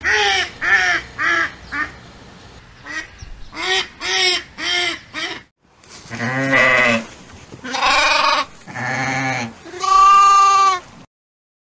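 A mallard duck quacking, a run of about nine short calls over the first five seconds. Then sheep bleating: four long bleats, some deep and some higher-pitched, the last one the loudest.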